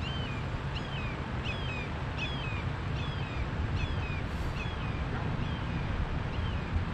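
A bird calling a short note over and over, about nine times at roughly one every three-quarters of a second, each note a quick rise and a falling slide, growing fainter toward the end, over a steady low rumble.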